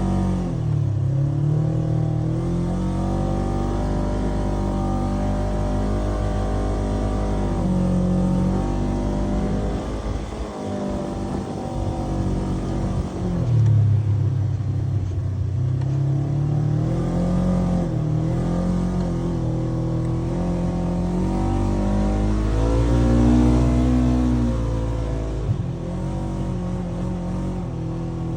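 Polaris RZR 900 side-by-side's engine revving under varying throttle, its pitch rising and falling again and again, with a rougher, weaker stretch about ten seconds in.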